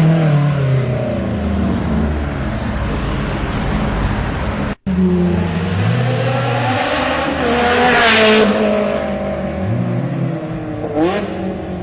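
High-revving sports car engine, which the listener takes for a flat-plane Ferrari V8, revving up and down through the gears with its pitch rising and falling several times. The sound cuts out briefly about five seconds in.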